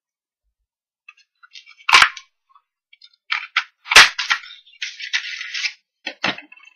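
Stampin' Up! Balloon Bouquet punch snapping through pink cardstock: two sharp cracks about two seconds apart, with paper rustling in between and a softer knock near the end as the punched balloon shape comes free.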